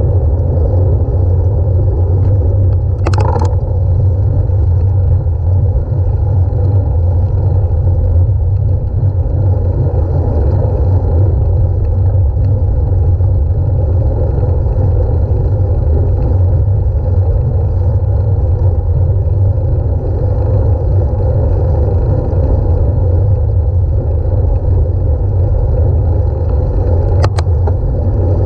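Steady, loud low rumble of wind and road noise while on the move, with a brief sharp sound about 3 seconds in and another near the end.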